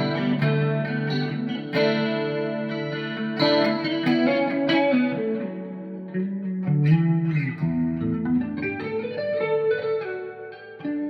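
ESP E-II Horizon electric guitar with EMG pickups played through an ambient clean preset: chords strummed several times and left to ring, then lighter picked notes, washed in delay, reverb and chorus.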